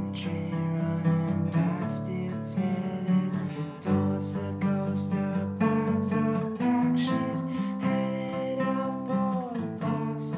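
Acoustic guitar strumming chords.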